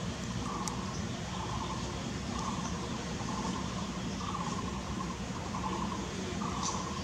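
Steady low background hum with faint, irregular short sounds higher up over it.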